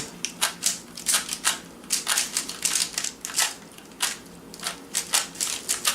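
Rubik's Cube being twisted quickly by hand: a run of irregular plastic clicks and clacks as its layers turn, several a second.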